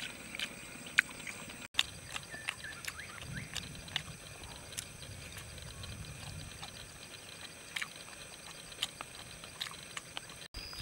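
A man eating roasted fish up close: chewing and lip smacking, a run of irregular short wet clicks and smacks.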